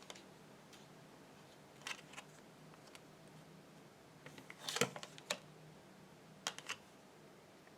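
Tarot cards being handled on a table: a few soft clicks and rustles, most of them bunched together just past the middle.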